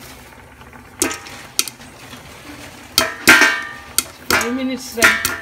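Popcorn kernels popping in a covered steel pot: irregular sharp pops, each striking the metal with a short clanging ring, about seven of them, the loudest around three seconds in.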